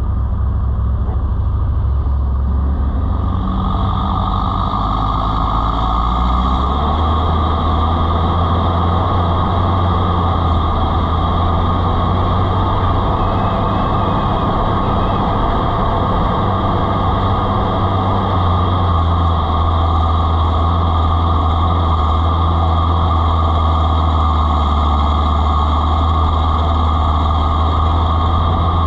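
Off-road 4x4 vehicle engine running steadily with a low drone, and a broad rushing noise that fills in about three to four seconds in.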